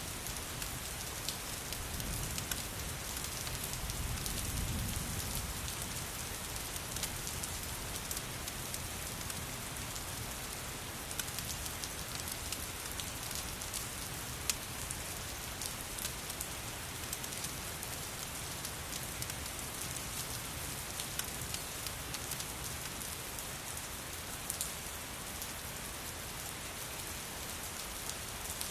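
Steady rain with many fine, scattered crackles of a wood fire mixed in. A low rumble swells briefly about four to five seconds in.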